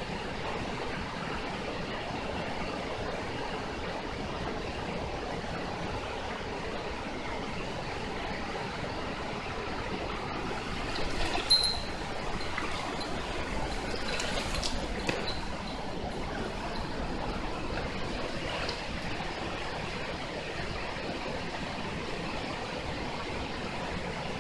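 Mountain stream water running steadily, with a few short sharp sounds about halfway through.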